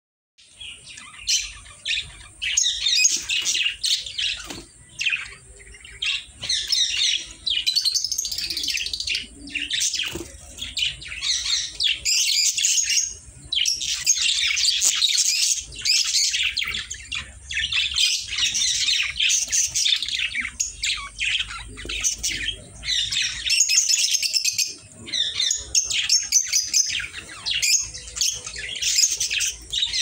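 A group of caged budgerigars chattering and chirping, several birds calling over one another without a break.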